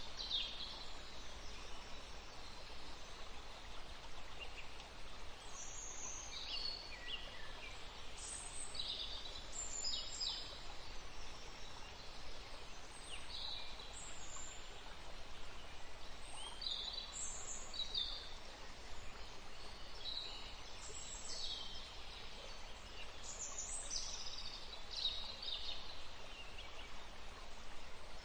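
Wild birds calling, short high chirps and trills every second or so, over a steady background hiss.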